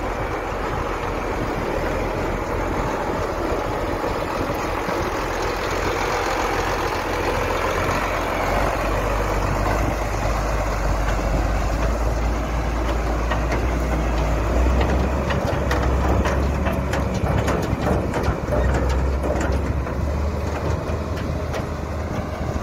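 Heavy tractor engine running steadily, growing louder about a third of the way in and again past the middle, with scattered clattering in the second half.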